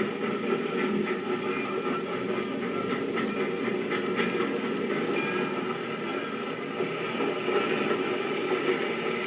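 Sound-effect recording of a passenger train running steadily along the rails, played from a 78 rpm record.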